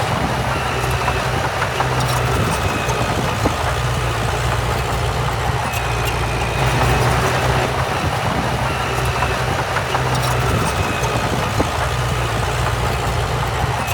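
Diesel engine of heavy earthmoving machinery running steadily, with a faint high tone coming and going above it.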